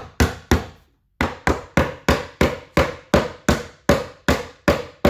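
Rubber mallet tapping a cabinet side panel down onto its joints, with light, steady strikes about three a second and a short break about a second in. The panel is being driven home until it sits flush.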